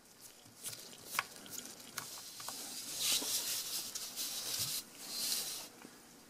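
Faint handling sounds of small-camera repair work: a few light clicks and scrapes of a small screwdriver on the camera body, then two spells of rustling as gloved hands work over a paper sheet.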